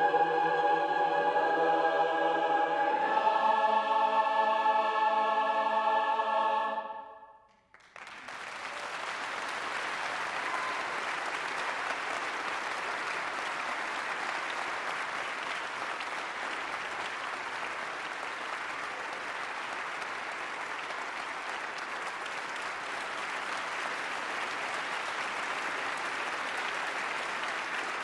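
Large mixed choir holding its final chords, the last change coming a few seconds in, before it is cut off about seven seconds in. After a brief hush, a large audience applauds steadily.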